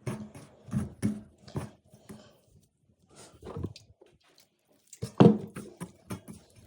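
Close-up handling sounds: irregular taps, clicks and knocks with a quiet gap in the middle and the loudest knock a little past five seconds in, over a faint steady hum.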